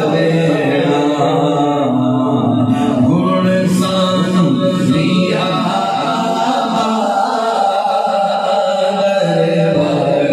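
Unaccompanied male voices singing a naat, an Islamic devotional song in praise of the Prophet, in long held melodic phrases.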